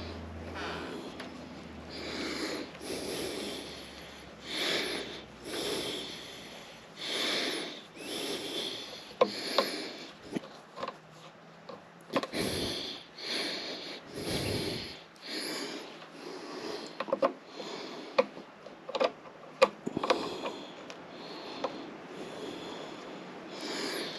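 A man breathing hard through his nose from exertion, one swelling breath every second or two. Sharp clicks and taps from tools are scattered through the middle.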